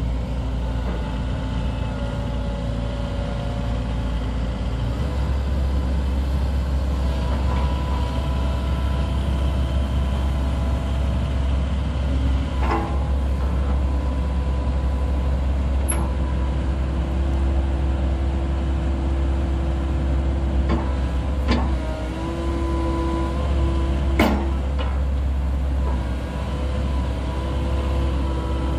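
2014 Komatsu PC138US-10 hydraulic excavator working its boom, arm and bucket: its four-cylinder diesel runs steadily under a steady hydraulic whine, its note shifting about five seconds in. A few sharp knocks come through in the second half.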